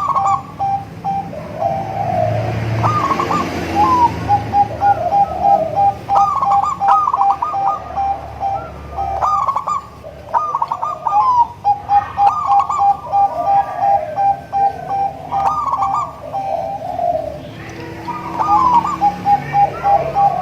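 Zebra doves (perkutut) cooing in repeated phrases, with runs of rapid, even notes at one pitch between the coos.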